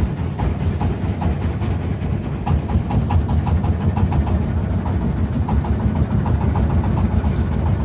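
Fishing boat's engine running steadily, a low-pitched drone with faint ticking above it.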